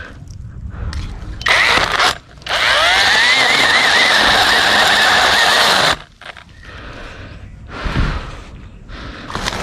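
KEELAT cordless mini electric chainsaw running and cutting through longan wood: a short burst, then about three and a half seconds of steady sawing with the motor's whine wavering under load. Near the end, a few lighter knocks.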